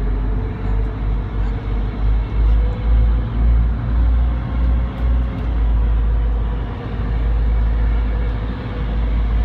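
Wind buffeting the microphone in uneven gusts on the open deck of a moving passenger ferry, over the steady running of the ferry's engines with a held whining tone.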